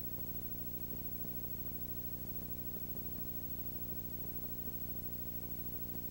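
A steady low electrical hum with many evenly spaced overtones and a faint hiss, unchanging throughout; no other sound.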